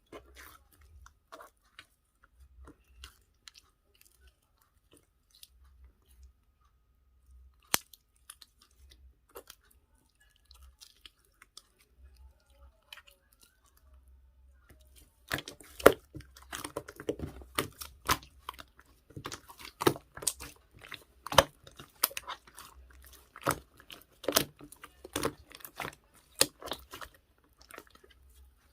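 Toy slime being squished and kneaded by hand, making sticky popping and crackling clicks. The clicks are sparse at first and come thick and fast from about halfway on.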